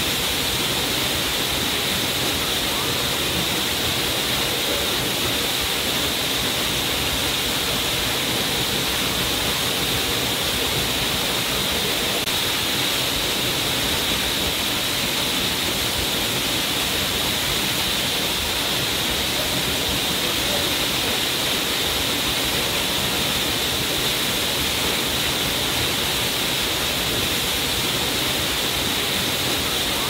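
Waterfall pouring onto rocks and into a plunge pool: a steady, unchanging rush of water with a bright, hissy edge.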